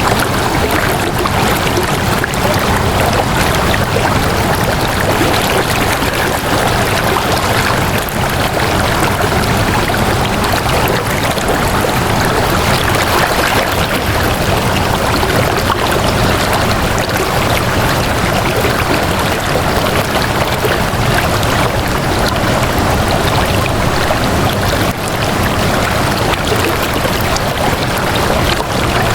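Flowing water running steadily with a constant rushing sound, like a stream, without a break.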